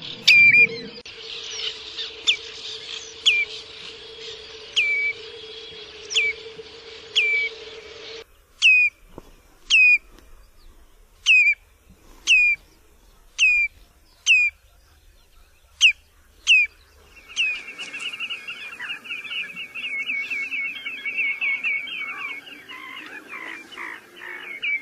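Common redshank calling: single sharp, falling whistled notes at about one a second, then from about two-thirds through a fast, unbroken run of rapid piping notes.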